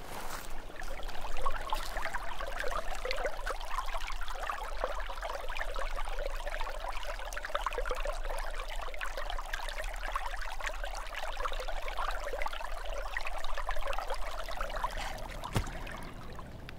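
Running water of a small stream, a steady close-up rush of water that stops shortly before the end.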